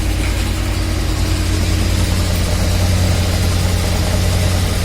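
VAZ 2101–2107 (Zhiguli) running in gear, raised with the rear brake drums removed: the inline-four engine idling and the rear axle shafts turning make a steady, even hum. This is the test for telling a failing axle-shaft bearing's metallic knock from a whining differential.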